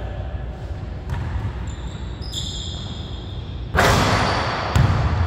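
Basketball bouncing on a hardwood gym floor, with a brief high sneaker squeak a couple of seconds in. Just under four seconds in comes a loud bang that dies away over about a second, followed by another thud near the end.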